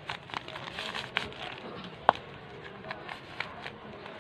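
Crinkling and rustling of a white wrapper band being pulled off a rolled cotton hijab, a run of small crackles with a sharper snap about two seconds in.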